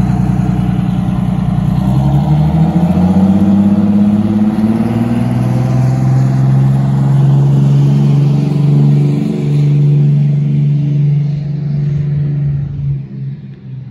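Converted coach bus pulling away down the street, its engine note rising as it accelerates over the first few seconds, then holding steady and falling away as the bus drives off near the end.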